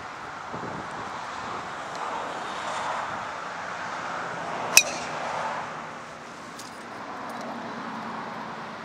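Golf club striking a teed golf ball once: a single sharp crack a little past halfway, over a steady outdoor hiss.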